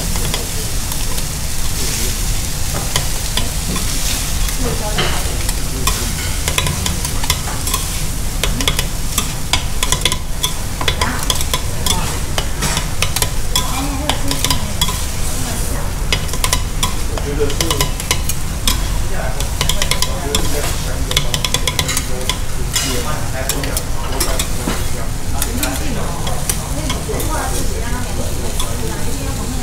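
Okonomiyaki batter and shredded cabbage sizzling on a hot steel tabletop griddle while two metal spatulas chop and scrape against the plate in quick, uneven strokes, over a steady low hum.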